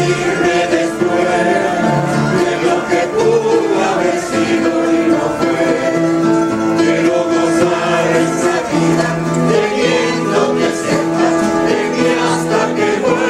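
Rondalla choir of men's and women's voices singing together with acoustic guitar accompaniment, in long held notes.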